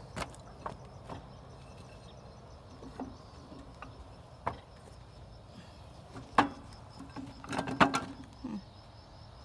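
Handling noises at a wooden table: scattered knocks and clatters as things are moved and set down, among them a melon being placed on a plate. The loudest knocks come about six and a half and eight seconds in.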